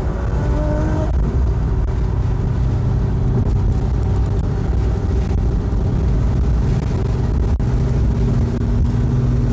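Fiat Coupe at motorway cruising speed, heard from inside the cabin: a steady low rumble of engine and road noise, with a short rising whine in the first second.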